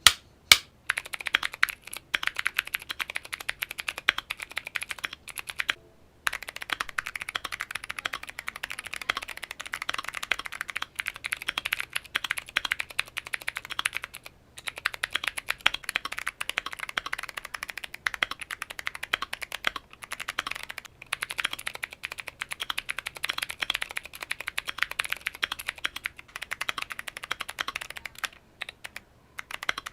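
Fast typing on a Keychron Q1 mechanical keyboard fitted with clicky switches: a dense run of sharp clicks, broken by brief pauses about 6 and 14 seconds in.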